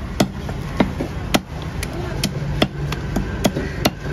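Long knife striking a wooden cutting block in sharp knocks, about two a second, as a red pomfret is scaled and trimmed on it.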